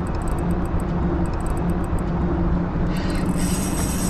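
Steady low mechanical drone with a constant hum and faint rapid high ticking; a brief high hiss comes in near the end.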